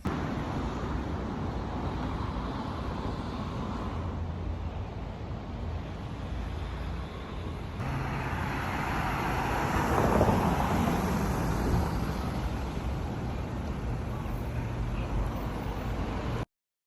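Road traffic: a steady rush of vehicles with a low engine hum, swelling about ten seconds in as one passes close, then cutting off abruptly.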